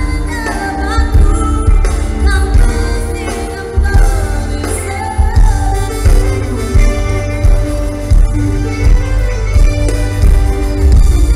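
Live pop-progressive band playing with a woman singing lead, heard from among the audience: a sung melody over heavy bass and a steady drum beat.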